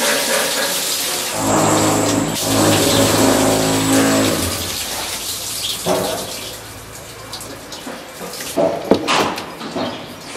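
Rinse water pouring and splashing out of a tilted plastic tub of freshly washed red currants onto wooden decking. For the first four seconds or so a steady machine drone from construction work runs under it. Then it goes quieter, with a few knocks and clicks near the end.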